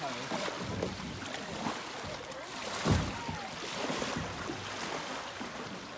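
Kayak paddles dipping and splashing in shallow sea water, with water sloshing around a tandem sit-on-top kayak's hull in uneven surges and one louder splash about three seconds in.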